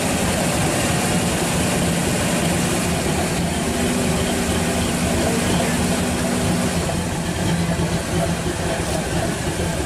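Hot rod coupe's engine idling steadily, a low even rumble.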